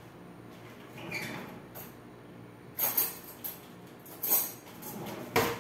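Off-screen kitchen handling sounds: a few short rattles and clatters, ending with a sharper knock, over a faint steady hum.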